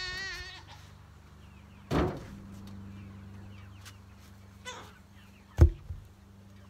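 Heavy round wooden posts knocking and thudding as they are lifted off a cart and set down: one sharp knock about two seconds in and a louder, deeper thud about five and a half seconds in. A Shropshire sheep bleats with a wavering call right at the start.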